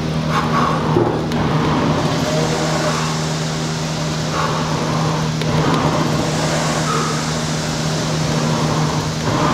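Concept2 indoor rower's flywheel fan whirring under easy warm-down rowing, with the whoosh swelling and easing in a repeating rhythm over a steady hum.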